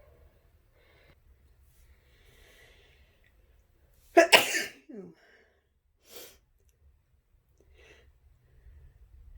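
A person sneezing once about four seconds in, a sharp two-part burst, after a few seconds of faint breathing as the tickle builds. A short falling voiced sound follows the sneeze, then a quick breath about a second later.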